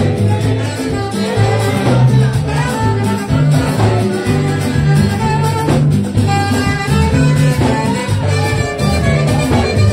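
Live praise band playing upbeat highlife-style dance music through PA speakers, with a steady bouncing bass line and a melody line above it.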